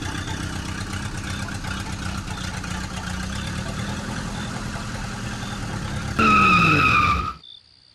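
A small motor running steadily. About six seconds in, a louder, higher tone sounds for about a second while the low hum falls in pitch, then everything cuts off suddenly.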